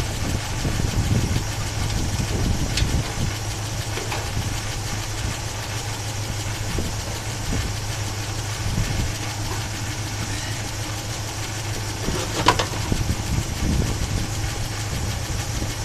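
Chevy 350 small-block V8 idling with a rattle from the passenger-side top end, which the owner thinks might be a stuck valve lifter, and a sharp click near the end.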